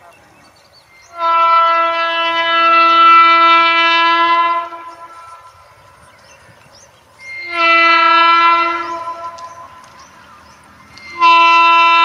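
WAP-7 electric locomotive's horn sounding three blasts: a long steady one, a shorter one, and a third starting near the end.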